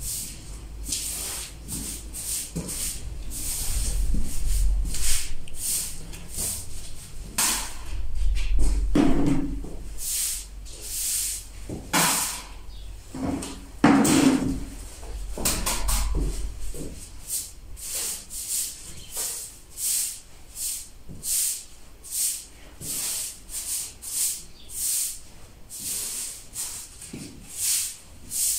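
Short, dry swishes of a straw hand broom sweeping plaster dust across a tiled floor, stroke after stroke at an uneven pace of about one or two a second. A couple of louder knocks come in the middle.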